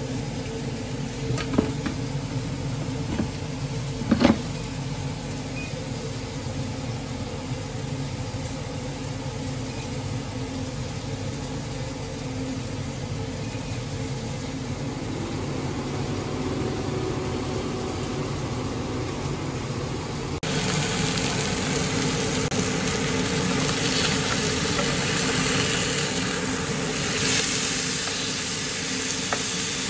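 Tefal air fryer running with a steady fan hum, and two short clicks in the first few seconds. About two-thirds of the way through this gives way suddenly to hoki fillets sizzling in a ridged grill pan, a louder even hiss.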